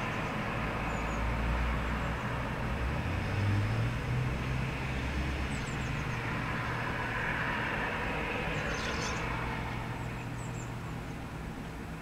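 Steady rumble of road traffic, with one vehicle passing louder about three to four seconds in. A few faint, short, high bird chirps sound over it.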